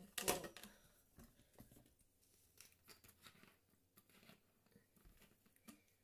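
Faint handling noises, light rustles and small clicks, with one louder rustle just after the start.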